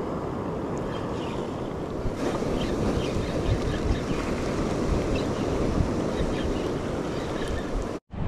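Waves surging and washing over a rocky reef flat, with wind buffeting the microphone. The sound drops out abruptly for a moment near the end.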